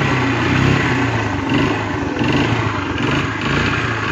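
Motorcycle engine idling steadily. It has only just been started after much effort, a bike that the rider says won't start in the mornings.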